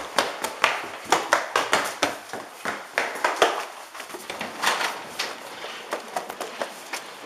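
Handling noise from a camcorder carried by someone running: irregular knocks, several a second, and rubbing of the microphone against clothing.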